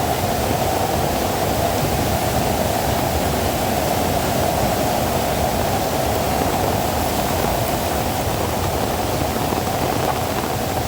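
Floodwater rushing steadily: a loud, even, unbroken rush of water.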